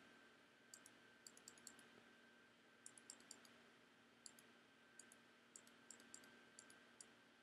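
Faint computer mouse clicks in quick little clusters, a few every second or so, over a quiet background with a faint steady high hum.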